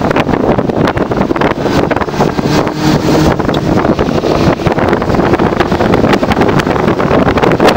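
Wind buffeting the microphone inside the open-top twin-turbo 5.0 V8 Fox-body Mustang as it cruises, with its engine and road noise underneath.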